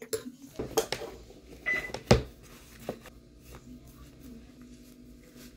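A metal spoon knocking and clinking against a pot several times, with a short high beep just before the loudest knock, then quiet room tone.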